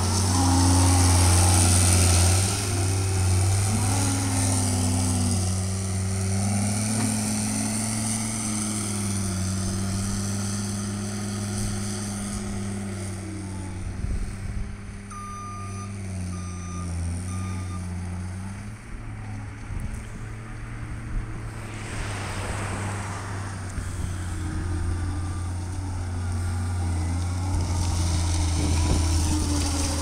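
John Deere 329D compact track loader's diesel engine running under way, its pitch rising and falling as it is throttled and steered. A back-up alarm beeps three times about halfway through.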